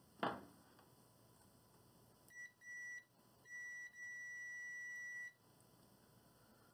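Digital multimeter's continuity beeper sounding a steady high-pitched tone as the test probes touch together: a brief blip, a half-second beep, then one beep of nearly two seconds that cuts off suddenly. A single click comes just before, about a quarter second in.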